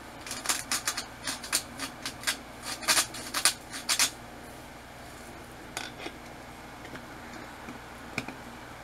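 Himalayan pink salt being dispensed over the pork chops: a run of short sharp ticks for about four seconds, then stopping, with a few faint clicks later.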